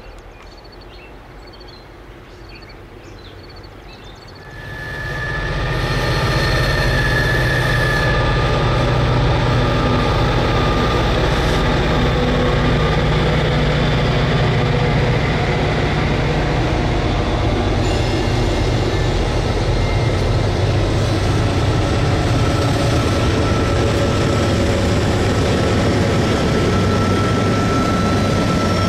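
Freight train led by several Norfolk Southern diesel locomotives approaching and then passing close, quieter for the first few seconds, then a loud steady engine rumble once the locomotives are alongside about four and a half seconds in. The engines give way to the steady rolling of covered hopper cars, with a thin steady squeal over it in the second half.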